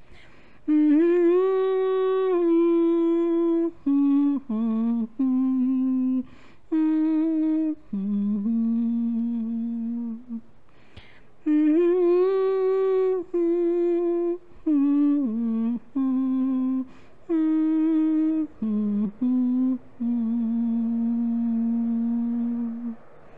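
A woman humming a slow melody unaccompanied, in long held notes and short phrases with brief pauses between them, in a small room.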